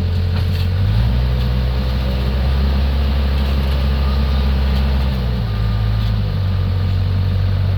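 Heavy engine of road construction machinery running. Its pitch and level step up about a second in and drop back around five seconds in.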